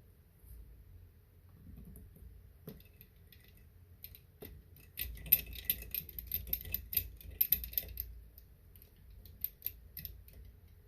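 Small screwdriver driving a tiny screw into a laptop's plastic bottom cover: light, rapid clicks and scratches of the bit and screw, thickest for a few seconds in the middle.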